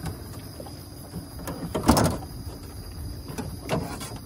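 Knocks and scrapes against a boat's hull and deck, the loudest about two seconds in, with smaller ones at the start and near the end.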